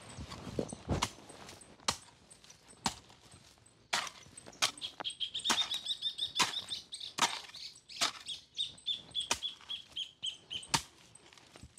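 Hoe blade striking and chopping into dry garden soil, roughly one stroke a second. A bird sings a rapid run of high chirps through the middle.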